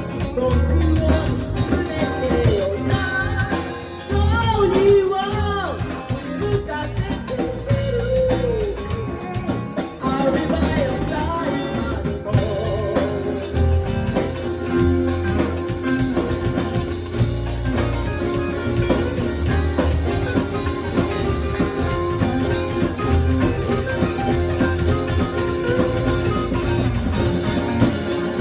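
A live band playing, with guitar and drum kit and a singing voice over them.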